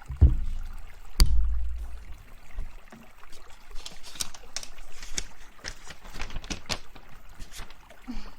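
Close-miked handling sounds: two heavy low thumps about a second apart, then a run of light taps, clicks and scratches.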